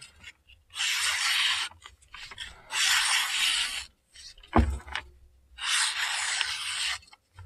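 A freshly sharpened Spyderco PM2 tanto blade, M4 steel with a 600-grit edge, slicing through lined paper: three long slicing cuts of about a second each. A short knock comes between the second and third cuts.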